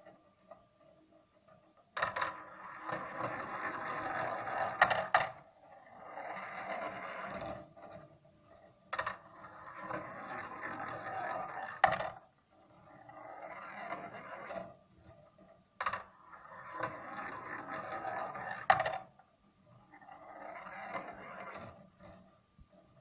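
Steel balls rolling down the black 3D-printed plastic tracks of a marble machine, one after another. Each run starts with a sharp click and goes on as a rolling rattle for two to three seconds, then a shorter, softer stretch on the next section of track. A new ball sets off about every seven seconds, three times.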